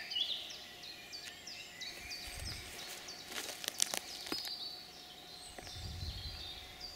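Woodland birds singing, a steady stream of short, repeated chirping notes, with a few sharp clicks a little past the middle.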